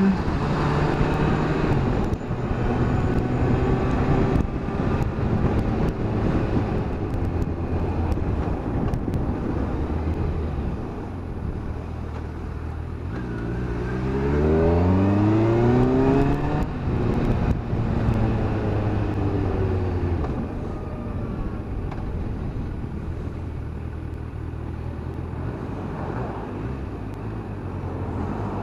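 Kawasaki Versys 1000's inline-four engine running on the road at a steady cruise. About halfway through it accelerates hard, its pitch climbing for a few seconds, then drops back at a gear change to steady running again.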